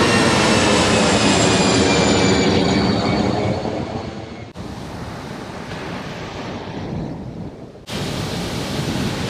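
Jet airliner passing low overhead as it climbs out after takeoff: a loud rumble with whining engine tones that slide down in pitch as it goes by. About halfway through the engine noise drops to a fainter, more distant rumble. Near the end it gives way to the hiss of breaking surf.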